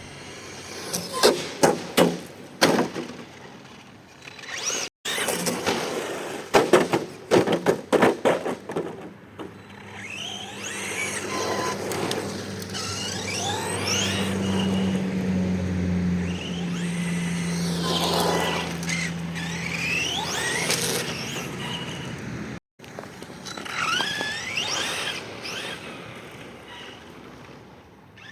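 Arrma Senton 3S RC truck being driven hard: its electric motor whines in repeated rising and falling sweeps as it speeds up and slows, with squealing. Two clusters of sharp knocks and clatters, in the first few seconds and again a few seconds later, are the truck hitting and bouncing.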